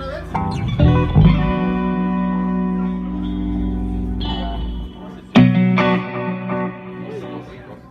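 Amplified guitar being tried out at a sound check: a few plucked notes and chords left to ring, then a hard struck chord about five seconds in that fades away.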